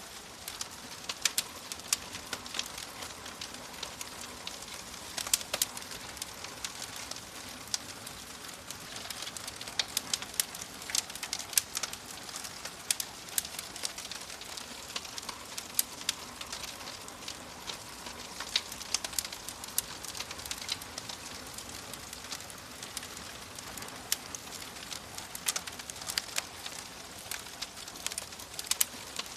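Fire crackling: frequent sharp, irregular pops over a steady soft hiss.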